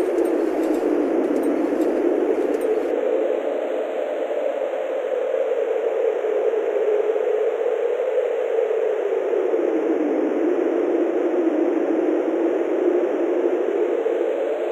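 A steady rushing noise effect whose pitch band drifts slowly down and back up, laid under the slow-motion footage. Faint glassy tinkles from the preceding impact effect die away in the first three seconds.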